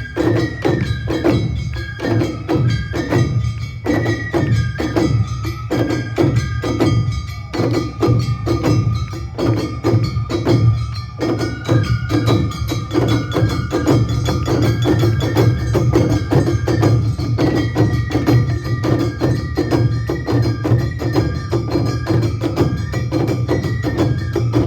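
Awa Odori festival band music: a high flute melody over a fast, steady beat of drums and a small hand gong.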